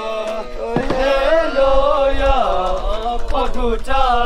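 Chanted Buddhist mantra set to music: a sung voice holding long, wavering notes over a steady drone.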